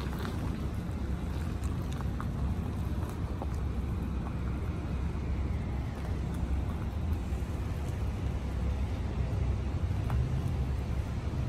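Steady low rumble of a car rolling slowly, heard from inside the cabin.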